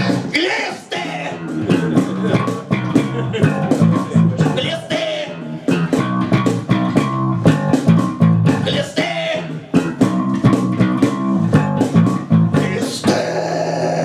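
Live rock band playing: electric bass guitar and drums, with a man singing. Near the end the drumming stops and a low note is held.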